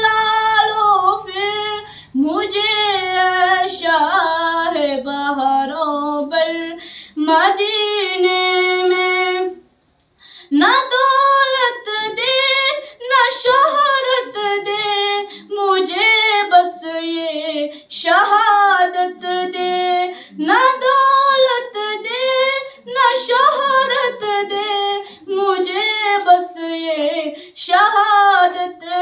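A girl singing an Urdu naat solo into a microphone, unaccompanied, in long held and bending notes. There is a short break in the singing about ten seconds in.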